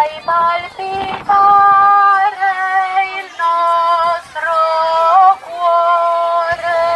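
A hymn sung by a high female voice in long, steady held notes that change pitch every second or so.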